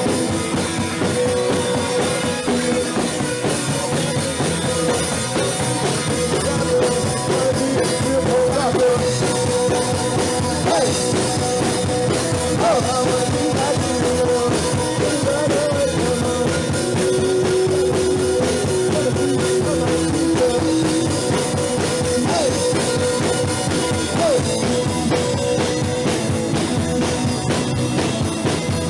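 Punk rock band playing live and loud: electric guitar, bass guitar and a steady, driving drum kit.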